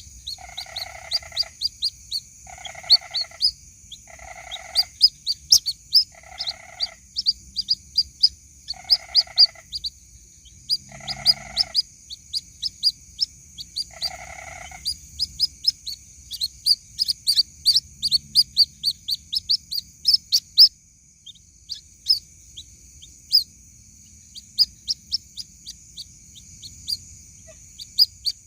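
White-breasted waterhen (ruak-ruak) chick calls: rapid trains of short, high-pitched peeps repeated throughout. A lower, rasping call sounds about every second and a half during the first half, and a steady high-pitched hiss runs underneath.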